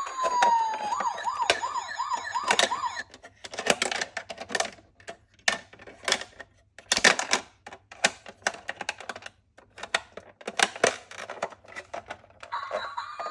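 Ambulance siren: a falling tone that breaks into a fast warble, cutting off about three seconds in and starting again near the end. Between them comes irregular clicking and clattering of small toy ambulance minicars rolling and knocking together.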